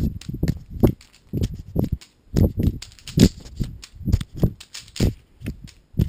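Hand-juggling catches: a camera, a Rubik's cube and a ball thudding and knocking into palms, two or three unevenly spaced knocks a second, with handling thumps as the camera is caught.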